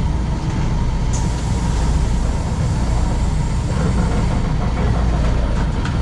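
An EMU1200 electric multiple unit heard from inside the carriage as it pulls away from a station: a steady low rumble from the running gear and traction equipment.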